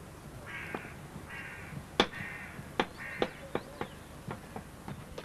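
A crow cawing three harsh times in the first three seconds, with irregular sharp knocks throughout, the loudest about two seconds in.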